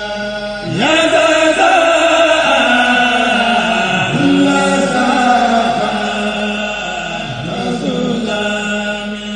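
Male chanting group (kourel) singing a Mouride khassida without instruments: the voices hold a steady low note while a lead voice comes in about a second in with sliding, ornamented lines above it.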